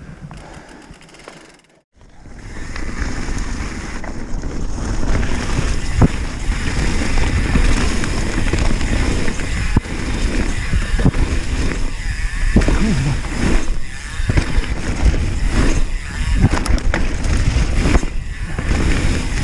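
Mountain bike riding fast down a leaf-covered dirt trail: a steady rush of wind buffeting the microphone and tyres rolling over leaves and dirt, with frequent knocks and rattles from the bike over bumps. It starts about two seconds in, after a short near-silent gap.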